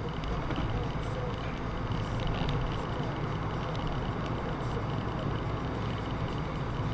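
Car driving along the road, a steady low engine and tyre rumble heard from inside the cabin.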